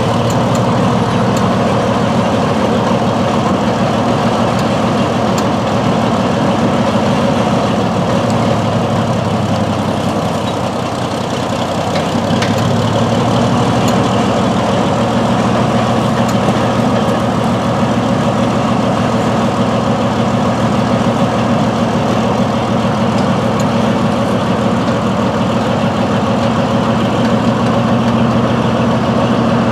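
Northwest 80D crane's engine running steadily under the operator's control. About eleven seconds in it eases off briefly, then picks up to a slightly higher speed and holds there.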